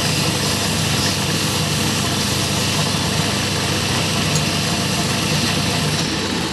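Small wood lathe running steadily while sandpaper is held against the spinning wooden cigarette holder: a dense, even hiss with a low motor hum under it.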